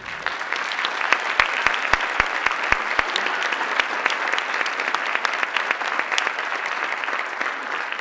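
Audience applauding at the end of a dance number, breaking out all at once. A few sharp, close claps stand out between about one and three seconds in.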